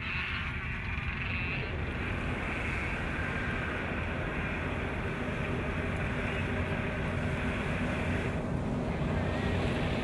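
Steady wind and surf noise with no distinct events.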